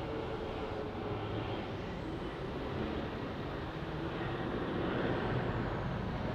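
Jet airliner engines passing, a steady rumble with a faint high turbine whine that rises and then slowly falls in pitch.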